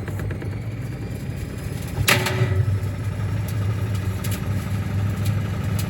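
Gorenje washing machine running with heavy bricks in its drum: a steady motor hum, one loud metallic bang about two seconds in with a short ring, then a few lighter knocks as the bricks strike inside.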